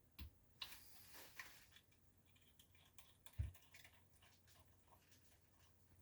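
Faint clicks, taps and light rustling from small parts being handled during bench work on a floppy disk drive, with a single dull thump about three and a half seconds in.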